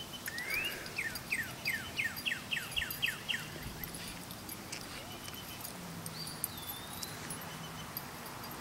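An animal's series of about ten quick, high calls, each falling in pitch and coming faster and faster, over the first three seconds. A single high gliding call follows later.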